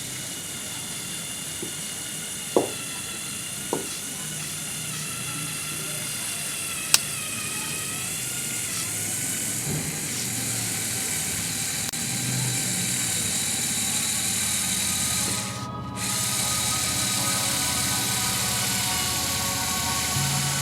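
Small electric motors of a remote-controlled Lego Technic off-road vehicle whining steadily as it drives, with a few sharp clicks early on. Music comes in under it in the second half.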